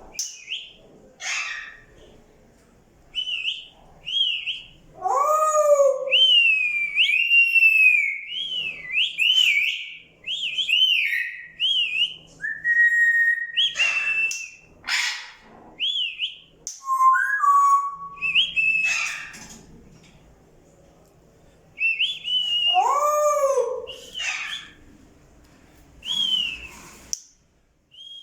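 Pet parrots whistling and calling in repeated phrases of short rising-and-falling whistles, with a couple of lower, harsher calls around five seconds in and again near the end.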